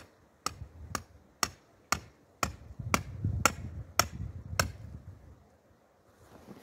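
A tent stake being driven into the ground with a hand-held stone: about nine sharp strikes, roughly two a second, that then stop.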